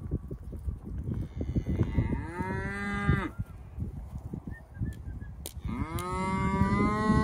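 Hereford cow mooing twice, two long calls of about two seconds each that rise in pitch at the start and then hold steady, over a low crackling rumble.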